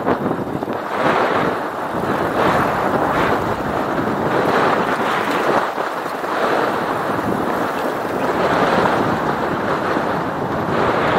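Wind rushing over the microphone of a camera on a moving bicycle, rising and falling in gusts.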